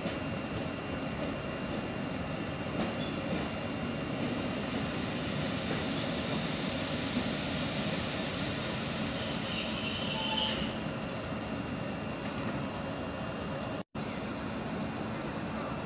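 An EN57 electric multiple unit rolling into the station, its running noise growing as it nears, with a high-pitched squeal as it brakes about halfway through, the loudest part.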